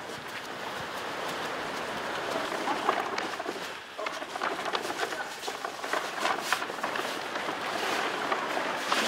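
A giant 15-by-15-metre sheet of origami paper rustling and crinkling as it is lifted and folded over, with many small crackles, and footsteps on the paper.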